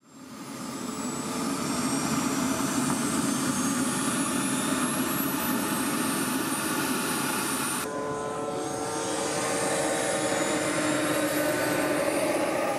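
Turbine engines of large radio-control model jets running with a high whine that slowly rises in pitch. About eight seconds in, the sound changes abruptly to a lower, steadier whine.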